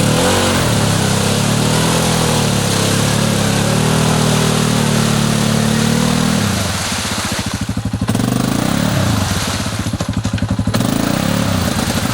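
ATV engine running under changing throttle, its pitch rising and falling for the first six seconds or so, then dropping to a slower, lower chugging beat.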